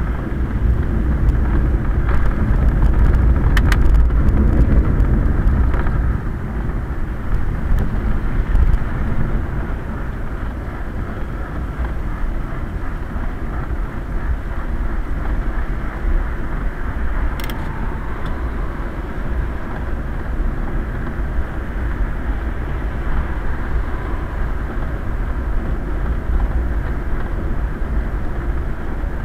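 Steady rumble of a Quest velomobile rolling along a wet road, heard from inside its shell under the hood: tyre, road and wind noise, louder for the first few seconds. A sharp click sounds about three and a half seconds in and another at about seventeen seconds.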